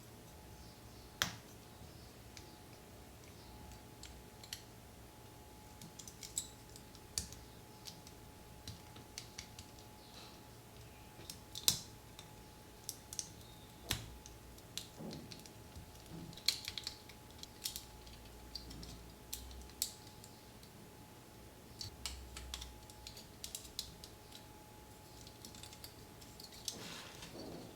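Irregular sharp clicks and taps of hard plastic model-kit parts being handled and snapped together, with a faint steady hum underneath. The loudest click comes a little before halfway.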